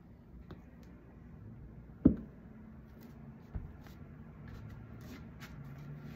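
A sharp thump about two seconds in and a smaller one about a second and a half later as bare feet and knees come down on a yoga mat over a wooden floor, with a few faint clicks and rustles and a faint steady hum underneath.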